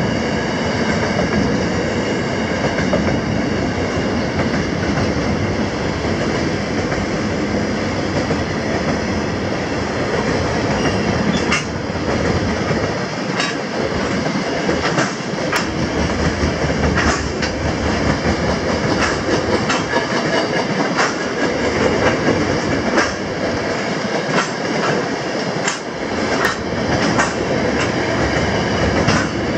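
A freight train's wagons, container flats and then louvred vans, running past at speed with a steady rushing rumble of wheels on rail. From about a third of the way in there are sharp clicks as the wheels cross rail joints.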